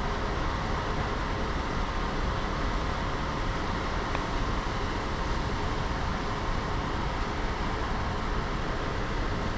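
Steady drone of a ferry under way, heard from its open deck: engine and ventilation rumble mixed with wind and water rushing past the hull, with a faint steady hum.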